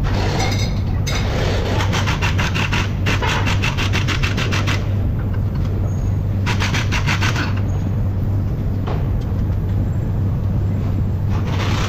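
Hand ratchet wrench clicking in quick, even runs while a nut on the front steering knuckle's ball joint is turned, three runs with pauses between them. Underneath runs a steady low hum.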